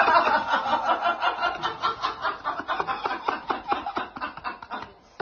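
A person laughing hard in quick repeated pulses of giggling, cut off abruptly near the end.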